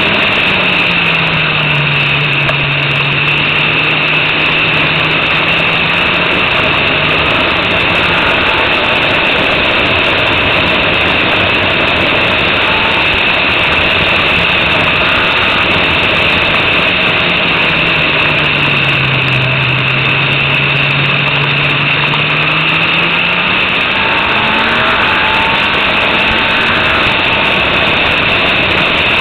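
Formula Renault 2.0 racing car's four-cylinder engine at speed, heard from an onboard camera under heavy rushing wind noise. Twice the engine note drops and holds low, as for a corner, then climbs again as the car accelerates out.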